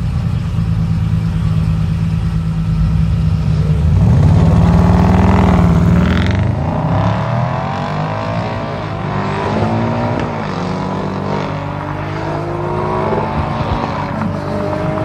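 Two tuned Audis, a 1000 HP Audi TT R30 Turbo and an Audi RS6 Avant, at a drag-race start. The engines run steadily on the line, swell loudest at about four seconds, then launch and accelerate hard, the pitch climbing and dropping again with each upshift.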